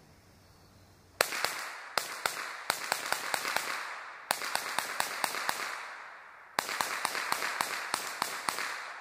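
GSG 522 .22 LR semi-automatic rifle fired rapid-fire to empty its magazine. Sharp shots start about a second in and come in quick strings of about three to four a second, with a short break about two-thirds of the way through.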